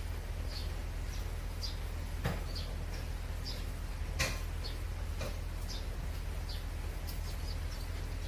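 Low steady rumble of a tractor engine running, with short high chirps from barn swallows scattered through it and two light knocks, about two and four seconds in.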